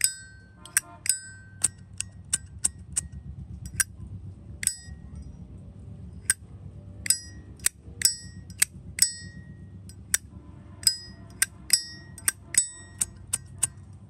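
A Zippo windproof lighter's hinged metal lid being flicked open and snapped shut over and over: about twenty-five sharp metallic clicks at an uneven pace, many followed by a brief bright ring from the case.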